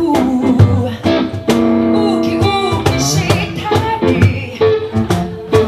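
Live music: a hollow-body archtop electric guitar being played, picked notes and chords, with a woman singing along.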